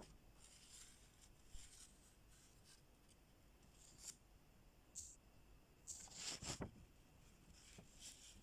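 Faint scratchy strokes of a drawing tool on paper, coming in short irregular bursts, with the longest and loudest run a little past the middle.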